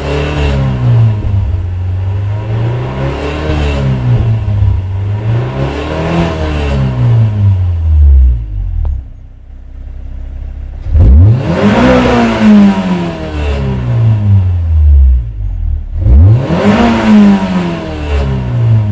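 Toyota 4A-GE 16-valve four-cylinder engine being revved repeatedly, about five times, the last two sharper and higher, each falling back toward idle. The owner reports a weird sound that becomes audible around 4,000 rpm.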